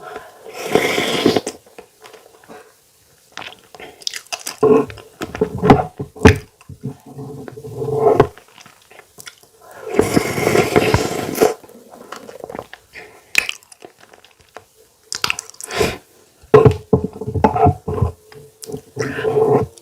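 Close-miked eating sounds: irregular chewing and biting with some crunching, in uneven bursts with a few louder stretches.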